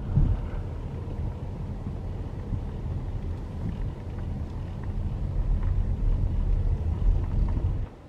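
Car driving along an unpaved road, heard from inside the cabin: a steady low rumble of tyres and engine.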